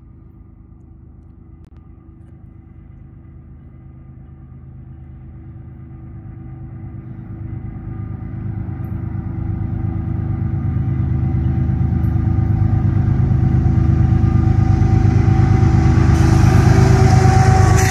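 Diesel locomotives approaching at the head of a train: a BNSF GE ES44AC lead unit with its 12-cylinder GEVO engine running, a low rumble with steady engine tones growing steadily louder as it nears. A hiss of wheels on rail builds near the end as the lead units draw close.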